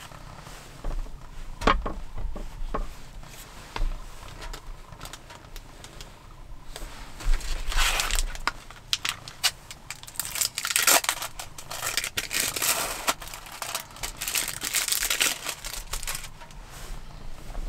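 Plastic food packaging crinkling and rustling as sliced ham is peeled from its pack and laid on bread, with a few sharp clicks and taps in the first few seconds; the crinkling is thickest from about seven seconds in.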